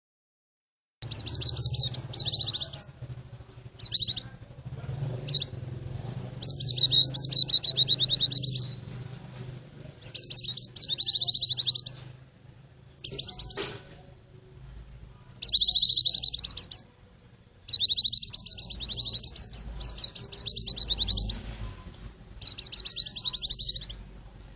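White-eye (pleci) song: about ten bursts of rapid, high twittering trills, each up to about two seconds long with short gaps between, starting about a second in.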